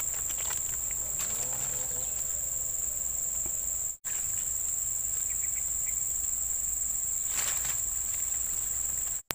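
Insects in the grass making a steady, high-pitched chirring drone, broken only by two instant dropouts, one about four seconds in and one near the end.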